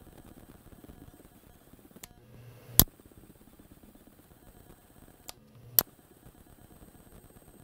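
Button on a handheld ultrasonic dog repeller pressed twice, about three seconds apart: each press gives a soft click, a faint low hum while the button is held, then a sharper click on release. The ultrasonic output itself is not heard, only the clicks.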